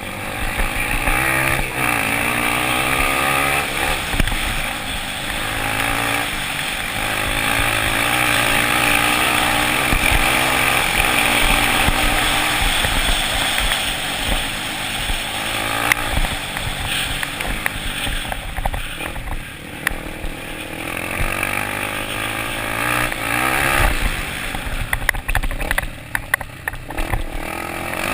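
Dirt bike engines racing on a dirt track, revving up and down continuously.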